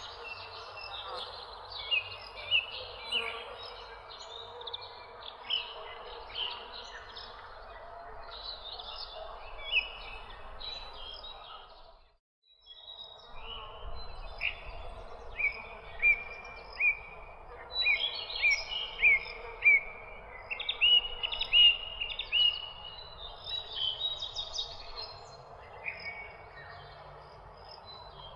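Many birds chirping and calling, with short repeated note series over a steady background hiss. The sound drops out briefly about twelve seconds in, then the chorus resumes.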